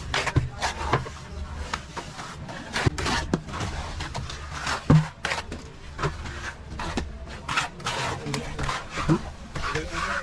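Irregular scraping and knocking, many short strokes, with a low steady hum underneath.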